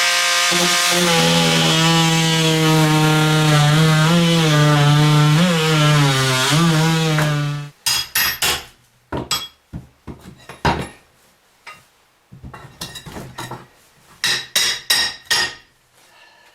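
Oscillating multi-tool with a saw blade cutting into a wooden wall: a loud steady buzz whose pitch wavers a little as the blade loads, stopping suddenly about eight seconds in. After that, a run of irregular knocks and clatters.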